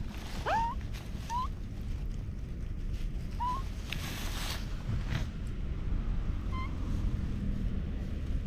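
Kitten mewing: about four short, high mews rising in pitch, the first and loudest about half a second in, over a steady low rumble of wind on the microphone.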